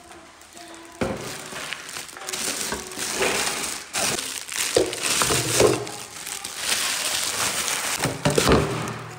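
Plastic wrapping crinkling and crackling in uneven spurts as it is pulled off a new cooking pot and its glass lid.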